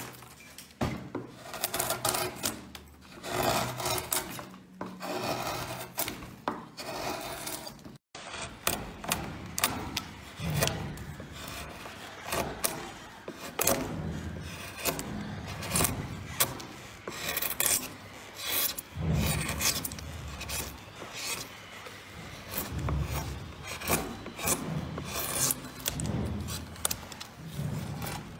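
Hand carving gouge and chisel paring into soft wood: a quick, irregular run of scraping cuts, one stroke after another. The sound breaks off for an instant about eight seconds in.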